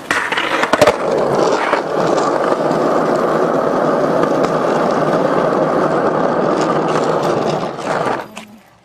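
Skateboard wheels rolling steadily over rough asphalt, with a few sharp clacks near the start. The rolling dies away near the end.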